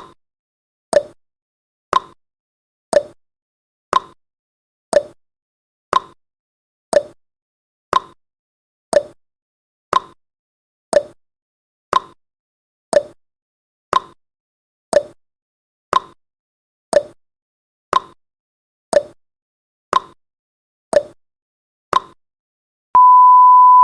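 Countdown timer's ticking clock sound effect, one tick each second alternating between a higher and a lower note like a tick-tock. Near the end the ticking stops and a steady electronic beep starts as the timer runs out.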